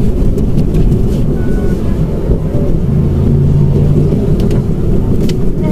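Mitsubishi Mirage under way, heard from inside the cabin: steady engine and road rumble, with the engine's hum holding a steadier note for about a second near the middle.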